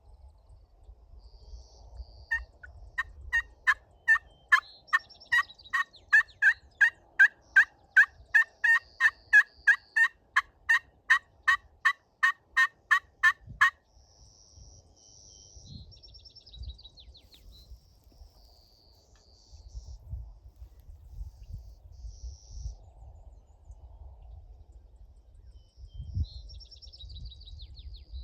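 A long, even run of turkey yelps, about two and a half a second for some eleven seconds, then stopping. Small birds chirp faintly afterwards.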